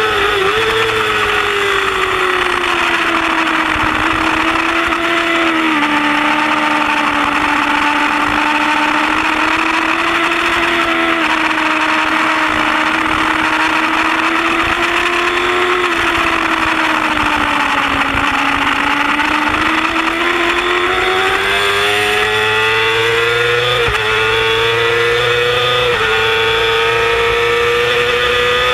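Yamaha R6 inline-four sport bike engine held at high revs, heard from the bike over heavy wind rush. The engine note sags slowly through a long corner, then climbs again on the way out, with a few abrupt small steps in pitch along the way.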